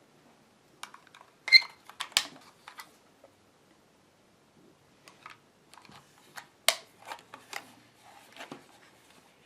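Irregular plastic clicks and snaps from a battery-powered LED light-switch puck being handled, its battery covers and casing clicking. The loudest snap, about a second and a half in, has a short ring to it.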